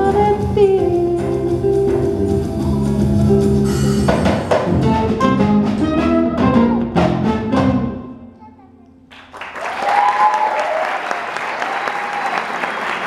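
A live band, with acoustic guitar, electric bass, drum kit and a singer, plays the final bars of a song, which ends about eight seconds in. After a brief hush, the audience breaks into applause with some voices calling out.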